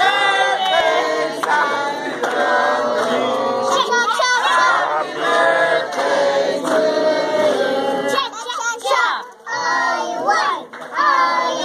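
A group of people, children among them, singing a birthday song together.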